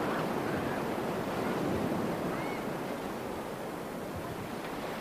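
Sea waves washing, a steady noisy wash that eases slightly after about three seconds.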